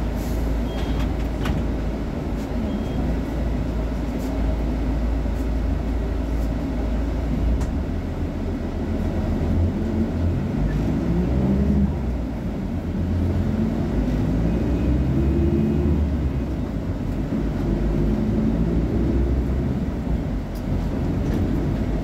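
VolksBus 17.230 OD city bus's Euro V diesel engine running at standstill, a steady low rumble. In the second half its pitch rises and falls several times.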